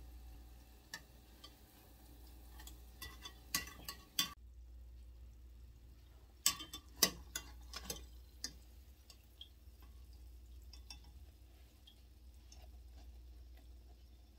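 Scattered light clicks and knocks of a cooking utensil against a pan while dough balls fry in oil, in two clusters about four and seven seconds in, over a faint low hum.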